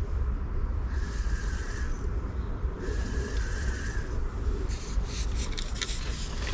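Wind buffeting the microphone, a steady low rumble. Near the end comes a quick run of clicks and rattles.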